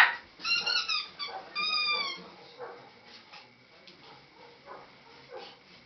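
Small dog yipping and whimpering in play: a sharp yelp at the start, then a few high cries with slightly falling pitch over the next two seconds. After that the cries stop and only softer rustling and shuffling are heard.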